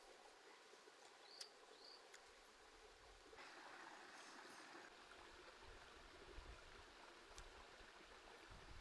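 Near silence: faint outdoor ambience, with two short high chirps in the first two seconds and a brief soft hiss about three and a half seconds in.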